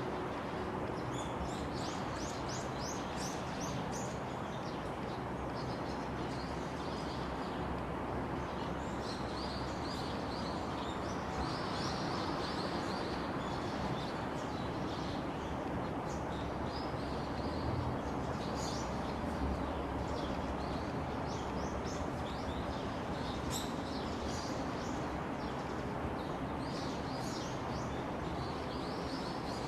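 Small birds chirping and twittering in short, repeated calls, scattered throughout, over a steady outdoor background noise.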